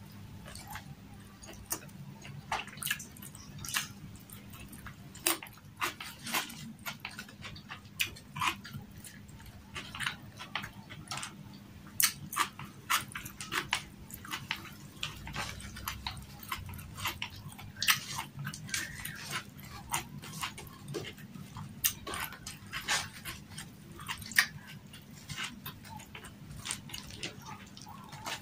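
Close-miked chewing and mouth sounds of a person eating fried milkfish, rice and raw vegetables by hand: irregular wet clicks, smacks and crunches right through, over a faint steady low hum.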